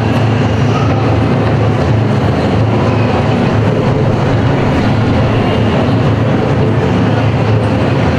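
Onidaiko taiko drumming in a dense, steady roll with no clearly separate beats.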